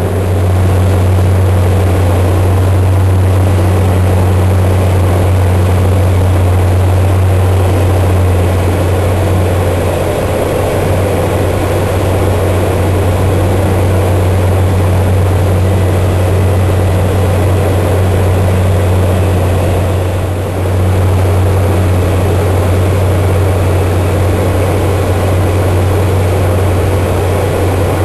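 DHC-2 Turbo Beaver's turboprop engine and propeller running steadily, a loud low drone over a broad rush of noise, dipping briefly about twenty seconds in.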